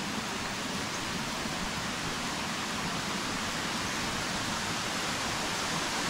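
Steady rush of falling water, a waterfall or stream out of sight, growing slightly louder.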